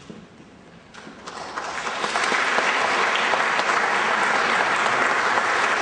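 Audience applauding. The clapping starts about a second in and quickly builds to a steady level.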